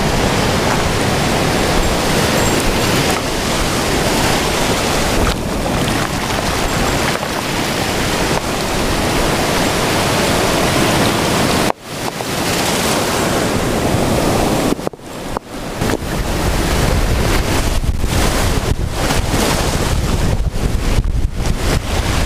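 Surf washing in over a beach of rounded stones, with wind buffeting the microphone. The noise dips sharply twice around the middle.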